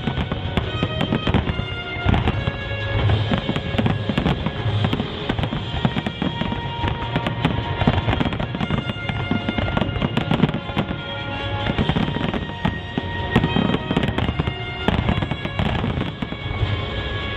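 Fireworks display going off continuously, a dense run of bangs and crackles, with music playing underneath.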